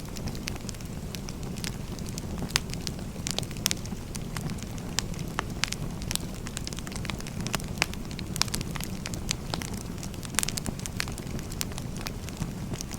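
Firewood burning: a steady low rush of flame with frequent, irregular sharp crackles and pops.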